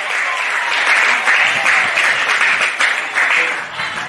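Spectators clapping for a goal just scored, with a few shouting voices over the applause.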